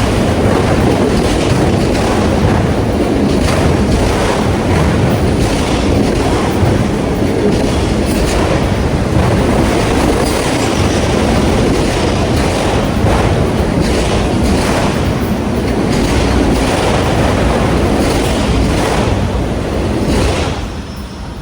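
CN freight train cars rolling past close by, their wheels clacking over the rail joints in a steady, loud rumble. The noise falls off sharply near the end.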